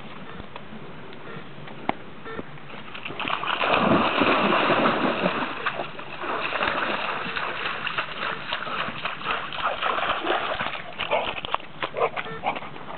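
A dog splashing as it wades into shallow water, loudest about three to five seconds in, then lighter sloshing as it moves about in the water.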